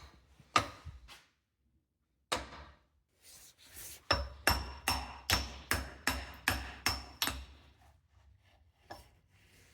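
Hammer blows on a seized boat-engine starter motor that is being freed up. A few scattered strikes come first, then a steady run of about eight blows, two to three a second, each ringing briefly.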